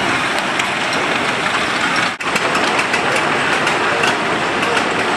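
Steam traction engines running: a steady noisy hiss with mechanical clatter and irregular ticks. There is a brief dropout about two seconds in.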